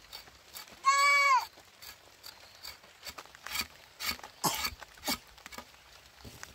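A short high-pitched call about a second in, its pitch rising then falling. Then a long knife blade scraping and hacking the peel off a cassava root in several quick strokes.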